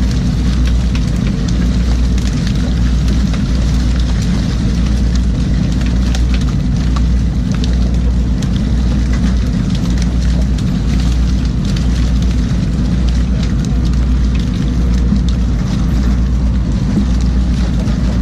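Fishing boat's engine running steadily with a low, even throb, and scattered knocks and clanks over it.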